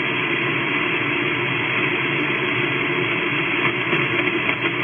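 Steady static hiss of shortwave band noise from an amateur radio transceiver on 20-metre upper sideband (14.287 MHz), with no station transmitting. The hiss cuts off sharply above about 3.5 kHz at the receiver's 3.6 kHz filter.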